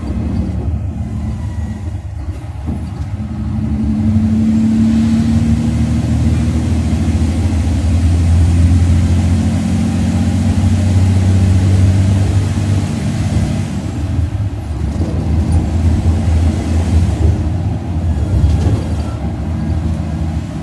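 Mercedes-Benz OC500RF 2542 coach engine running under load, heard from inside the cabin. It is a low rumble that grows louder about four seconds in and eases a little after about thirteen seconds.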